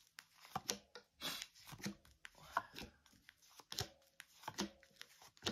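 Tarot cards being handled: drawn from the deck and laid on the table, a quiet, irregular series of short papery snaps and taps.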